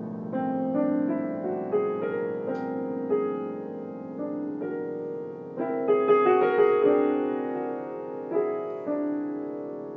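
Piano improvising on the whole-tone scale: notes struck in quick succession and left ringing into one another. It grows busiest and loudest about six to seven seconds in, then thins out.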